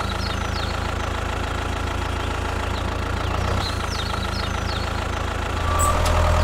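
The motor of a small homemade tractor-bulldozer running steadily with a low drone and a faint higher hum, getting louder near the end.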